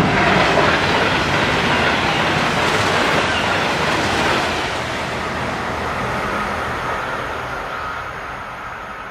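Three coupled DSB MF (IC3) diesel multiple units passing at about 171 km/h: a loud rush of wheel and wind noise, loudest for the first four seconds or so, then fading as the train recedes.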